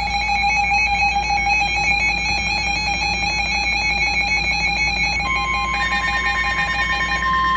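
Emergency Alert System attention tone: a loud, steady electronic alert tone. A second, higher steady tone joins about five seconds in, and the lower tone stops shortly before the end.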